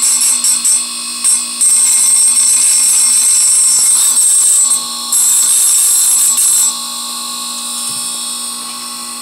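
Electric chainsaw-chain sharpener's grinding wheel spinning with a steady motor hum, while a hand-held dressing stone is pressed against it to clean its glaze and shape its edge into a U. This gives a harsh, hissing grind: a few short touches at first, then two longer passes, stopping about two-thirds of the way through and leaving the motor running alone.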